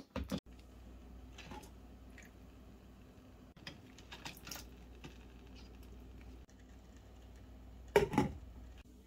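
Crab legs and lobster shell clicking and rattling against a stainless steel pot and its perforated steamer insert as they are put in by hand, in light taps with a louder clatter about eight seconds in, over a low steady hum.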